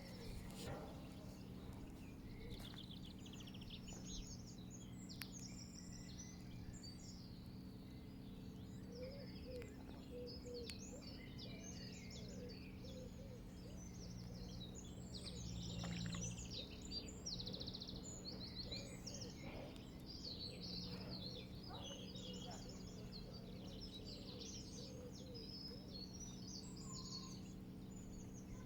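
Many small birds chirping and singing, overlapping trills and twitters throughout, over a steady low background rumble.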